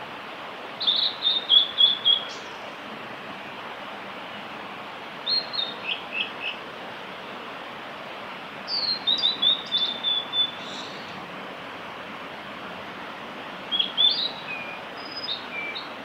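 Male blue-and-white flycatcher singing: four separate song phrases a few seconds apart, each a quick run of clear whistled notes, some sliding down in pitch. A steady hiss sits underneath.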